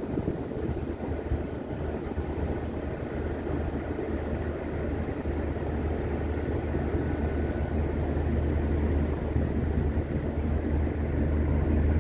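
Low, steady drone of a river ship's engines, with rushing wind and water noise, growing somewhat louder toward the end.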